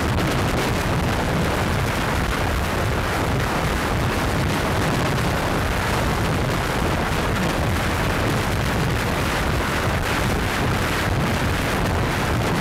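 Heavy wind buffeting the microphone of a camera riding on a moving jeep along a beach: a steady, loud rumble with hiss over it and no let-up.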